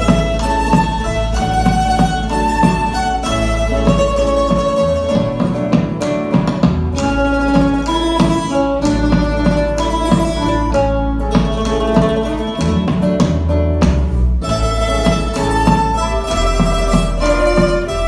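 A folk string ensemble playing an instrumental passage: acoustic guitars strumming a steady rhythm while laúdes carry the melody, over a low bass line.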